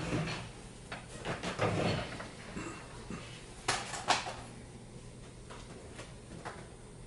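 Knocks and shuffling as a man sits down in a wooden chair at a table with papers, followed by two sharp clicks about four seconds in.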